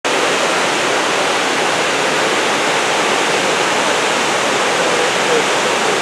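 Kravica waterfall's several cascades pouring into the pool below: a steady, loud rush of falling water.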